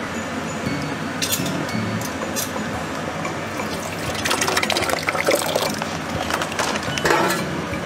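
Thick tomato sauce pouring out of a foil pouch into a stainless steel container. The pouring gets louder and busier, with many small wet crackles, from about four seconds in.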